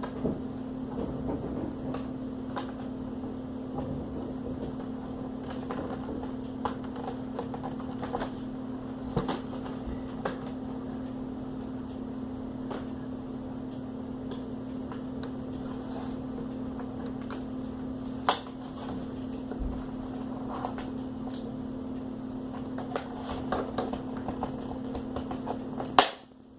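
Plastic laptop screen bezel being pried off by hand: scattered small clicks and scrapes as its snap clips give, with a sharper snap near the end, over a steady low hum.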